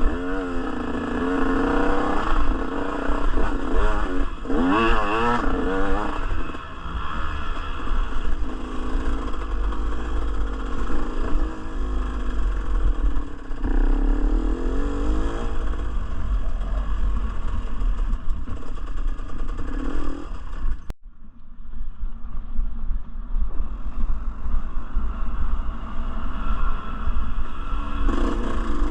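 Dirt bike engine revving up and down as the bike is ridden over rough terrain, over a constant low rumble. About twenty-one seconds in the sound cuts off sharply for a moment and comes back thinner, and the engine revs rise again near the end.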